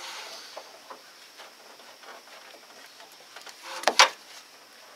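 Irregular light clicks and clinks of hand tools and parts being worked in a truck's engine bay, with one louder, sharp clank about four seconds in.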